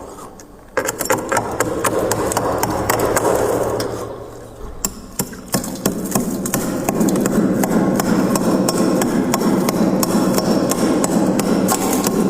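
Close-miked chewing of chunks of freezer frost: crisp crunching full of sharp cracks. It eases off briefly about half a second in and again around four and a half seconds in, then runs as dense, continuous crunching from about seven seconds.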